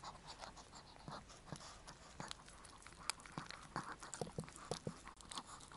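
A Chihuahua mother licking a newborn puppy: faint, irregular wet licks and small smacking clicks. The licking massages the pup to stimulate its first stool.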